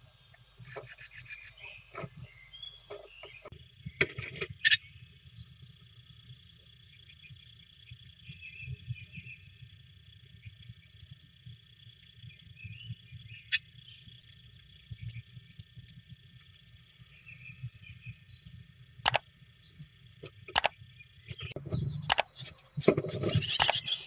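Great tit nestlings begging in the nest box: a steady stream of rapid, very high chirping notes while the parents feed them. Several sharp knocks are heard, the loudest about five seconds in.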